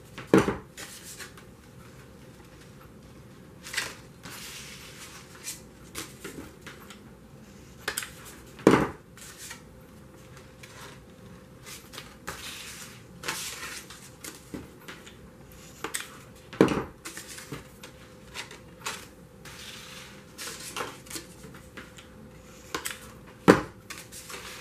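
Stiff cardstock flower petals rustling and crinkling as they are handled and pressed into place with hot glue, with scattered light clicks and four louder sharp knocks spread through.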